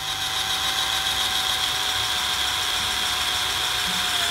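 Black+Decker CD121K 12-volt cordless drill/driver running at a steady speed with a high motor whine, its metal-drilling bit boring through a piece of wood.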